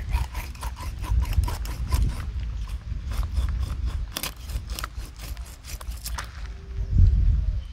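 A knife cutting through the scaled body of a large kalbasu (black rohu) fish: a quick, irregular run of crackling clicks as the blade works through scales and flesh, stopping a little after six seconds in. A low rumble runs underneath.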